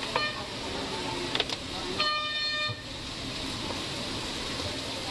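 A vehicle horn sounds once, a steady tone lasting under a second, about two seconds in, over steady street traffic noise. A wooden spatula knocks sharply against the steel wok a couple of times before it.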